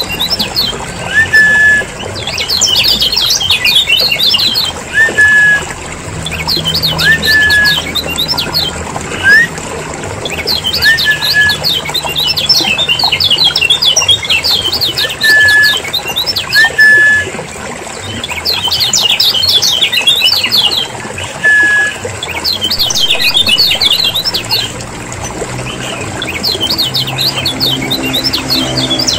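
Kecial kuning (yellow white-eye) lure recording: noisy bouts of fast, high twittering chatter a second or two long, with short upslurred whistled notes repeated every couple of seconds beneath them.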